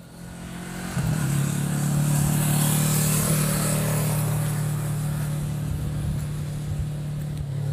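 An engine running steadily with a low hum, coming in about a second in, with a swell of rushing noise around three seconds in.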